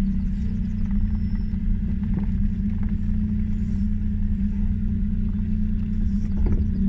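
Daewoo Tico driving off-road, its small three-cylinder engine running at a steady drone with a low rumble underneath. A few light knocks come through along the way.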